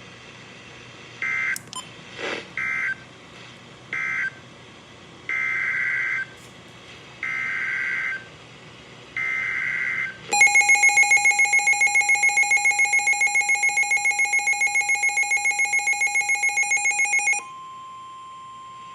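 Weather radio playing Emergency Alert System data bursts: three short two-tone screeching bursts that end the previous message, then three longer ones that announce a new warning. The Midland WR400 then sounds its loud pulsing alert beep for about seven seconds, followed by the steady single-pitch attention tone.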